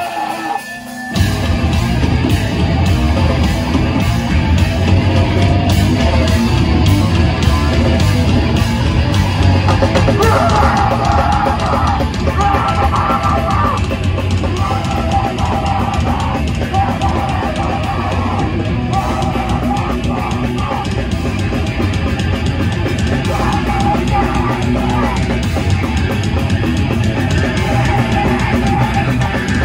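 Live heavy rock band playing loud: electric guitars, a drum kit and a singer. The full band crashes in about a second in after a brief quieter moment.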